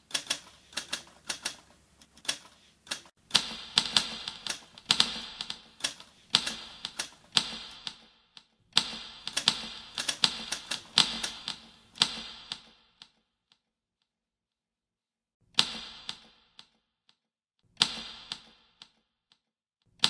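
Typewriter keys being struck in quick runs of clicks, each run a few seconds long. The runs stop a little past halfway, and after a pause of a few seconds there are two short bursts of keystrokes.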